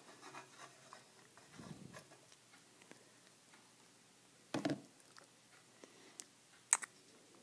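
Metal spoon skimming cream off milk in a pan and tipping it into a glass jar: mostly quiet, with a soft knock near two seconds, a louder knock about four and a half seconds in, and two sharp clicks near the end as the spoon taps against the containers.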